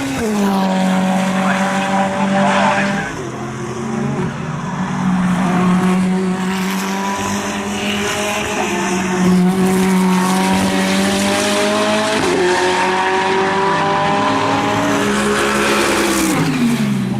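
Ferrari 488 GT3 EVO's twin-turbo V8 race engine running at a near-steady engine speed, with other engine notes overlapping it; the pitch drops sharply at the start and again near the end.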